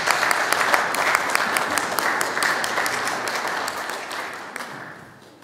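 Congregation applauding, dense steady clapping that dies away over the last second or so.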